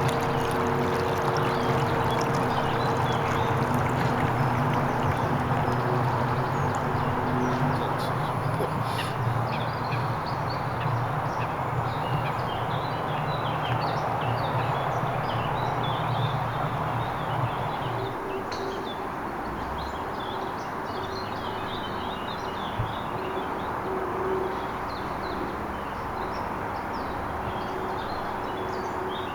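Small birds chirping over a steady hiss like running water. A low steady hum with several pitched lines runs under it and stops a little past halfway.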